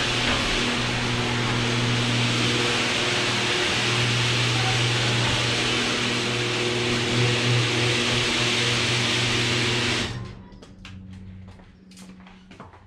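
Electric garage door opener running steadily with a motor hum as the sectional door rises, then cutting off about ten seconds in when the door is fully open. A few light clicks follow as the bike is wheeled in.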